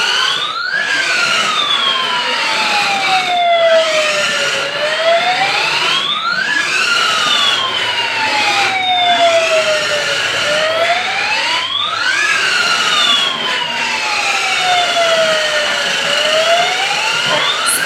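Siren wailing in slow cycles, each a quick rise in pitch and then a long slide down, three times over.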